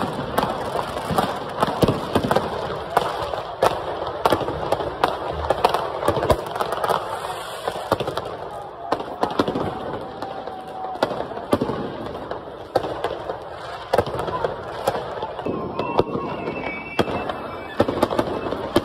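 Fireworks going off in quick, irregular bangs and cracks, many per second, over the steady hubbub of a crowd's voices.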